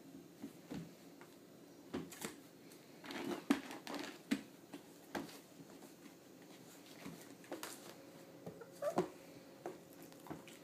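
German Shepherd–Husky cross puppies scrabbling and climbing on a plastic pet bed: irregular taps, scratches and knocks of small claws and paws on plastic and wood, busiest about three seconds in.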